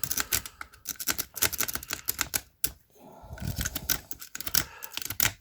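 Rapid, irregular metallic clicking of a lock pick raking the wafer core of a bicycle U-lock, the wafers clattering as the pick is scrubbed in and out under tension.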